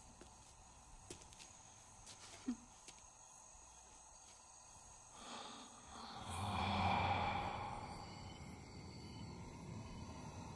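Crickets chirping steadily in the background. About five seconds in, a low droning swell rises, peaks and lingers.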